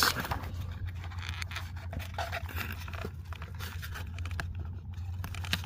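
Cardboard packaging handled in the hands: scattered scrapes, rubs and light ticks as the toy box and its inner tray are worked apart.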